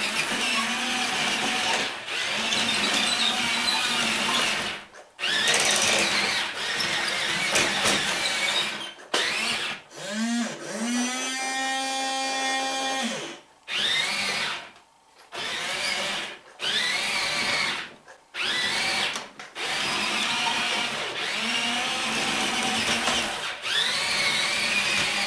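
A toy RC excavator's small electric gear motors whirr in short runs with brief stops between them as it drives, swings round and moves its arm on test after repair. About ten seconds in, one motor gives a whine that rises in pitch and then holds steady for a few seconds.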